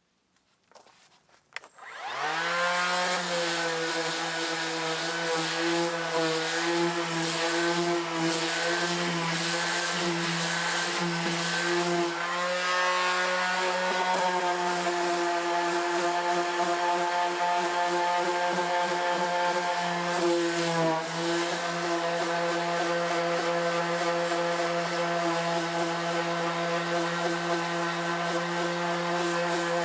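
A handheld electric power tool, used for stripping paint off a wooden boat, starts up about two seconds in and runs steadily. Its pitch wavers and dips briefly a few times as it is loaded against the work.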